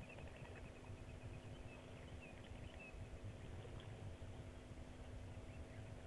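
Faint outdoor bush ambience: a low rumble under a steady hum, with faint short high chirps scattered throughout.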